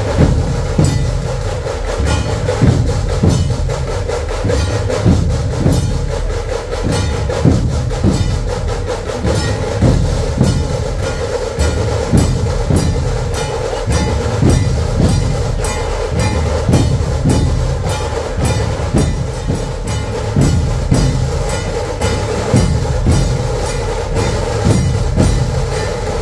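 Procession drum band playing a fast, even beat, loud throughout, with a sustained tone held over the drums.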